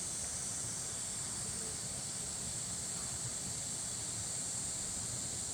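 Steady, high-pitched insect chorus, with a faint low rumble beneath.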